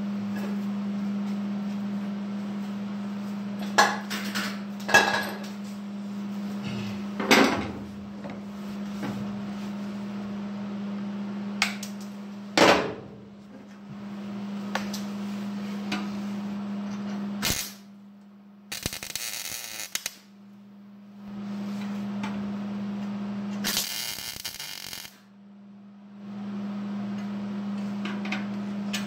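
Welder laying short spot welds on thin automotive sheet metal: two brief crackling, hissing bursts of arc, each about a second or so long, in the second half. Before them there is a steady low hum, broken by a few sharp clanks of metal and tools being handled.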